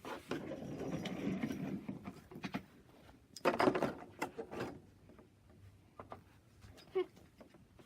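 Small toy pieces being handled and fitted into the compartments of a calendar box. There are a couple of seconds of rustling and sliding, a louder scrape about three and a half seconds in, and scattered light clicks and knocks.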